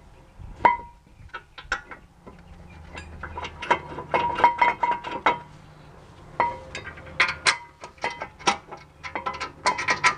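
Steel-backed brake pads clinking and tapping against the caliper bracket and rotor as they are fitted by hand: an irregular run of many sharp metallic clicks, each with a brief ring, busiest in the middle and near the end.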